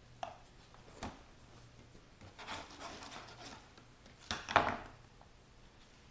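Staples being pried out of wood with a small, spoon-shaped screwdriver: a couple of short clicks, then scraping, and the loudest scrape and snap about four and a half seconds in.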